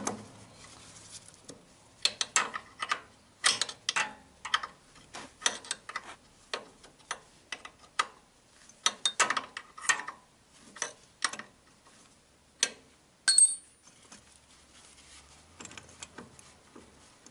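Irregular metallic clicks and knocks from gloved hands working at the mount of a steel swivel caster, with one short ringing clink near the end.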